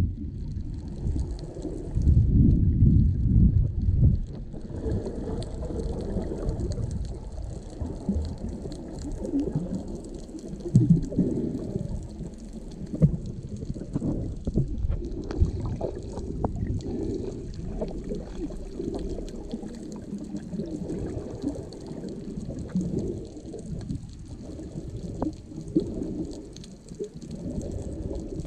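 Underwater sound of scuba divers' exhaled regulator bubbles, gurgling and rumbling in irregular surges, loudest for the first few seconds. Under them runs a steady hiss scattered with many small clicks.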